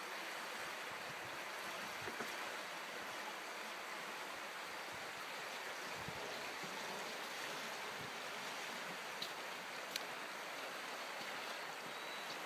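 Steady rush of a creek running high with spring runoff, with a few faint ticks.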